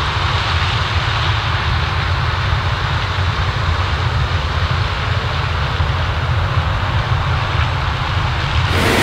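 Heavy farm machinery running steadily in the field during corn harvest: a deep engine rumble under a constant mechanical hiss. The sound changes abruptly to a brighter, louder machine noise near the end.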